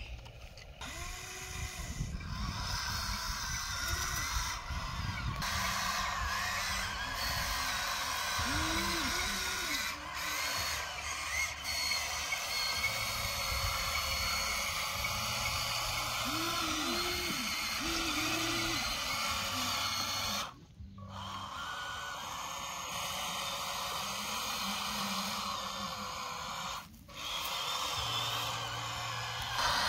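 Electric motors of a Huina radio-controlled model excavator whirring steadily as its arm and tracks work, cutting out briefly twice in the second half.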